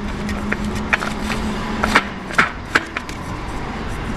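New spin-on oil filter on a Daihatsu Tanto L375S being screwed on by hand: a string of light clicks and scrapes as the canister threads onto its mount. A steady low hum runs under it for the first half.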